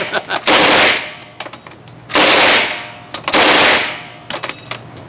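Machine gun firing on full auto: three short bursts, each about half a second long, the first at the start, then about 2 seconds in and about 3 seconds in.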